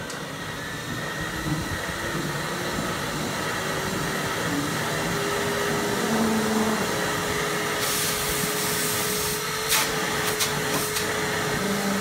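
Eureka Forbes WD-X2 wet-and-dry vacuum cleaner running with a steady rush of suction. Its motor hum climbs slowly in pitch over the first few seconds and then holds steady. A few sharp clicks come near the end.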